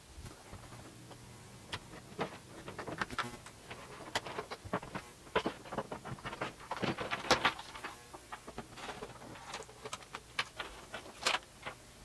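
Irregular clicks, taps and rustles of USB cables and their plugs being handled and fed behind a desk.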